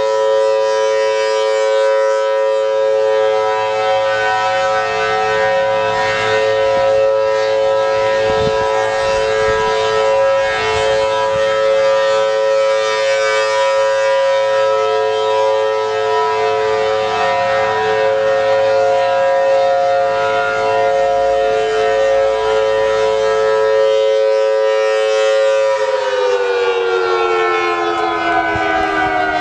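Federal Signal Thunderbolt 1000T siren with a 4/5-port rotor sounding a steady two-tone wail while its horn rotates. Near the end it starts to wind down, its pitch falling.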